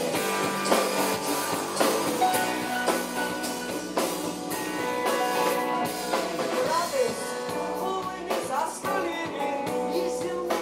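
Rock music with a drum kit and guitar playing steadily, and a voice singing in places.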